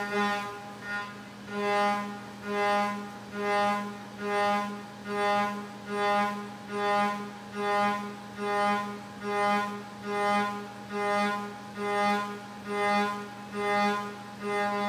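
Hurco VMX30Di's direct-drive spindle turning a 5/8-inch end mill at about 12,200 rpm, roughing aluminium: a steady pitched whine that never changes pitch. It swells and fades regularly, a little more than once a second, as the cutter bites into and leaves the cut.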